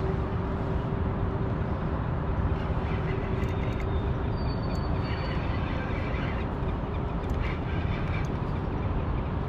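Steady low rumbling noise, like wind buffeting the microphone, with a few faint higher calls about three to eight seconds in.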